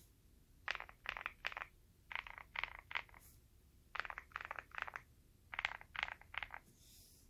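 Typing on an OwLab Mr.Suit mechanical keyboard with lubed, filmed CrInk frankenswitches (NK Cream stems in Gateron Black Ink V2 housings) on a POM plate, under MT3 keycaps. Keystrokes come in four quick runs of about four to five presses each, with short pauses between the runs.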